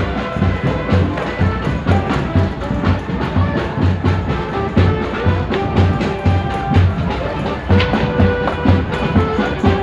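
Live street band music: a bass drum keeps a steady beat under held melody notes from the band.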